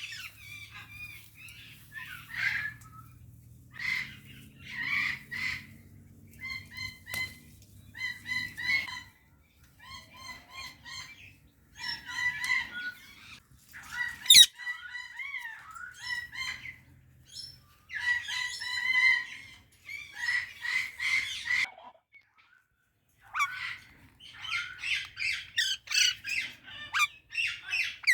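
Indian ringneck and Alexandrine parakeets squawking in repeated short, harsh calls, with pauses between bursts. A single sharp click about halfway through.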